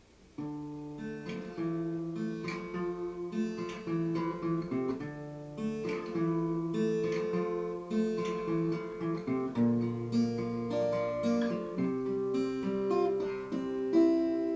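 Acoustic guitar playing the chord introduction to a song, the notes plucked and left ringing, starting about half a second in.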